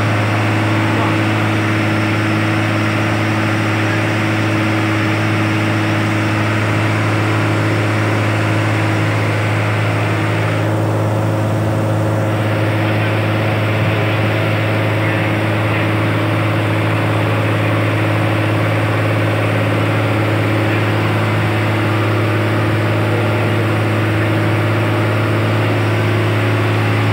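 Boat engine running at a steady speed while underway: a constant low drone with a steady rushing hiss over it.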